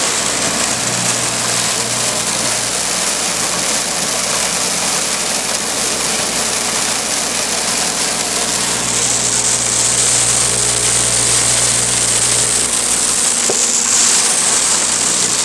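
Vincent VS8 8-inch shredder running steadily, its electric motor humming and rotor spinning through a stationary comb as it shreds soaked raw pistachios, with a constant rushing noise of the material going through.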